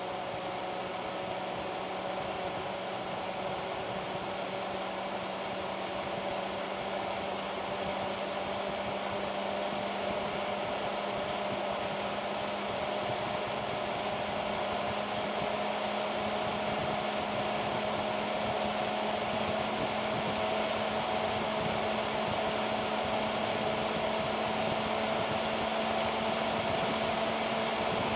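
Dell BTX CPU cooling fan running at high speed with the CPU at full load: a steady rushing whoosh of air with a hum under it. It speeds up gradually, its pitch and loudness rising slowly as the processor heats.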